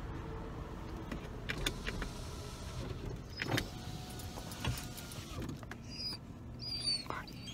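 Car interior with a steady low rumble and a few scattered clicks and rustles; near the end a few short high-pitched whines from the dog in the back seat, as it starts to get excited.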